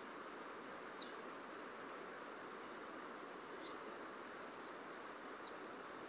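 Outdoor ambience by a river: a steady background hiss with a handful of short, high, downward-sliding bird chirps scattered through it, one sharper chirp about two and a half seconds in.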